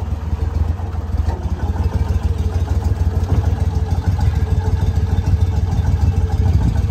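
Go Devil surface-drive mud motor running steadily at low speed, a constant low engine drone.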